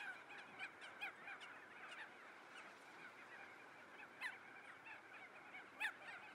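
A flock of birds calling continuously in a faint, busy chorus of short chirps, with a few louder sharp calls standing out, the loudest near the end.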